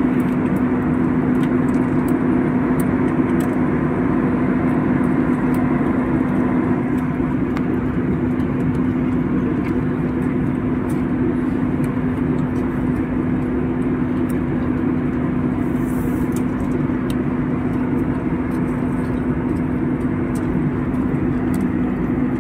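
Steady in-flight drone of a jet airliner heard inside the passenger cabin, from its turbofan engines, with a constant low hum running through it.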